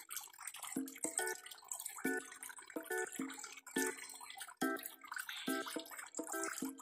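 Water splashing and dripping as many fish crowd and gulp at the surface, over background music of short, evenly repeated plucked notes.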